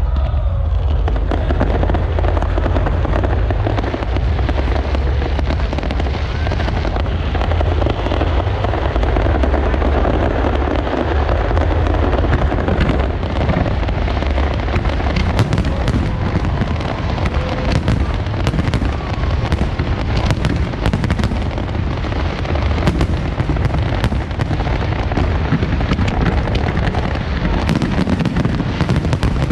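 Large fireworks display: a continuous barrage of deep booms with crackling bursts, the sharp cracks coming thick and fast in the second half.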